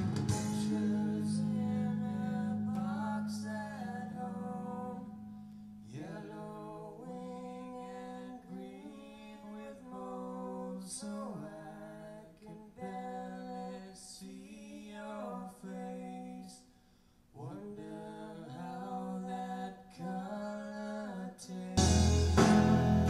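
Recorded acoustic-guitar music with a singing voice, played back through refurbished Fisher XP-7 loudspeakers and picked up by a microphone in the room. It drops out briefly around two-thirds of the way in and gets noticeably louder near the end.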